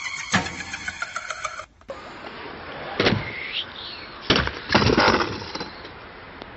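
A scooter crash on concrete at a skatepark: a sharp knock about three seconds in, then a louder clatter of hard knocks a little over four seconds in as the scooter and its rider hit the ground.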